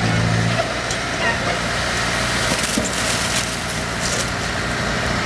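Farm tractor engine running, its steady hum fading out about half a second in. Then the load of manure slides out of the raised tipping trailer and lands on the ground: a noisy rush with scattered cracks.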